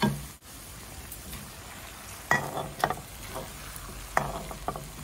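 Minced meat with onion and green pepper sizzling as it sautés in a frying pan, with a steady hiss. A spatula and spoon scrape and knock against the pans about five times.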